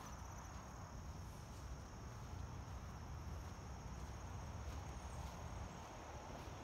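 Faint, steady, high-pitched trill of insects such as crickets, over a low rumble.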